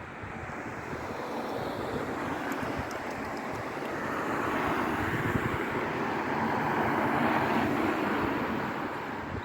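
A motor vehicle passing by: a broad rushing noise that slowly swells, is loudest about two-thirds of the way through, then fades.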